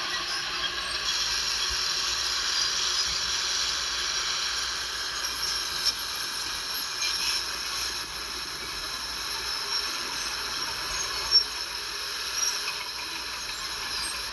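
Bulldozer working: a steady, high-pitched mechanical hiss and squeal with a few short clanks.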